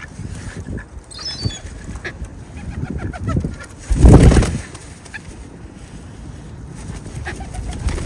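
Farmyard birds calling: scattered short calls and chirps, with a quick run of high chirps just after a second in and a loud, brief burst of noise about four seconds in.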